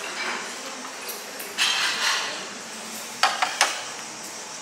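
Sharp clinks of hard objects knocking together, three in quick succession about three seconds in, over a steady background hiss with a brief swell of noise shortly before.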